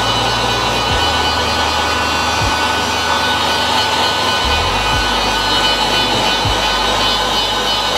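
Handheld electric heat gun blowing steadily, a constant rush of fan and hot air, as it cures the adhesive powder on a printed DTF transfer film.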